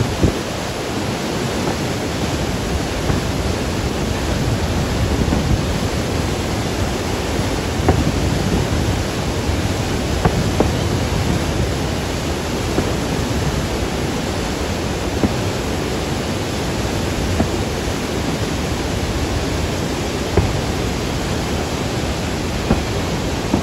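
Steady rushing noise of Niagara Falls and the river, with short, sharp firework bangs every few seconds.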